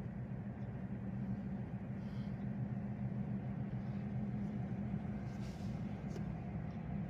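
A steady low engine hum with a few faint brief hisses over it.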